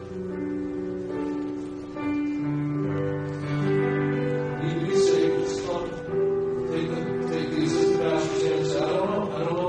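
Slow hymn music with long-held chords: the piano playing softly under an altar-call invitation.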